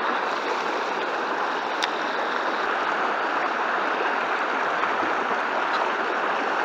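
Creek water rushing steadily over a shallow, rocky riffle.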